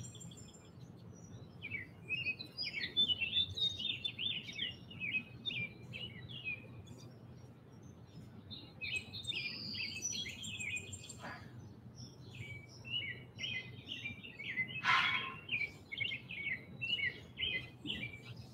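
Wild songbirds singing outdoors: runs of quick, high chirping phrases that come in several bursts with short pauses between them.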